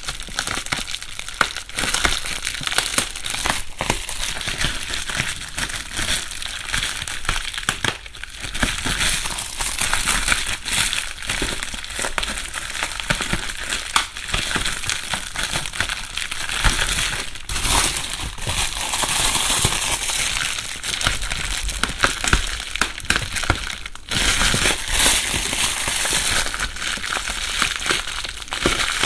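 Plastic bubble wrap being crumpled and rustled, with dense crackling and small pops throughout.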